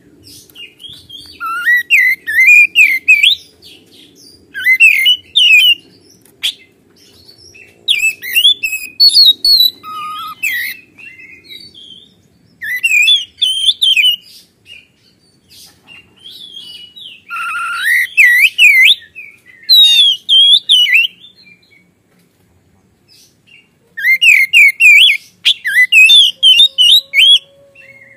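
Oriental magpie-robin (kacer) in full song: about six loud bursts of rapid, varied whistled and scratchy phrases, each one to three seconds long, with short pauses between them.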